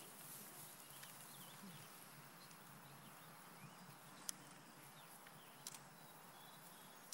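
Near silence: faint background ambience with a few faint chirps and two sharp clicks, about four and five and a half seconds in.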